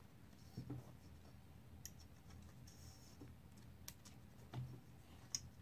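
Faint handling sounds of elastic bungee cord being stretched through the metal grommets of a folding lounge chair's sling: a few sharp clicks and two soft knocks against near silence.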